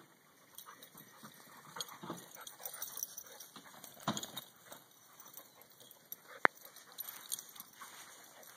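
Springer spaniel scuffling with a rooster on grass: irregular short rustles and dog sounds, with a stronger burst about four seconds in. A single sharp click about six and a half seconds in is the loudest sound.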